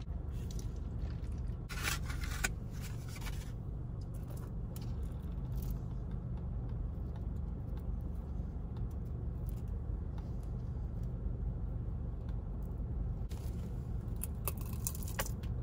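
Paper wrapping and a cardboard box rustling about two seconds in as a fried pie is taken out. Near the end come crunching bites into the pie's crisp crust. A steady low car-cabin hum runs underneath throughout.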